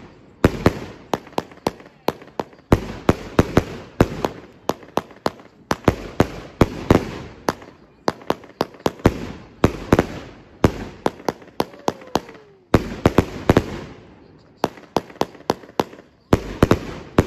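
Multi-shot consumer firework cake, taken for a 100-shot, firing its finale: loud, rapid bangs of launches and bursting shells in volleys of several a second, with brief lulls between volleys.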